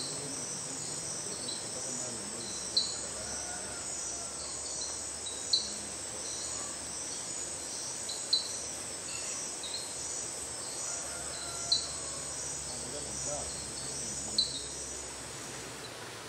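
Tropical night chorus of insects: a steady high buzz with a fast pulsing pattern. Over it, a sharp high chirp repeats about every three seconds, six times in all.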